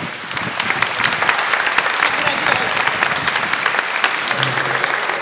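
Audience applauding after the music stops: a dense patter of many hands clapping. A low steady note from the stage comes in near the end.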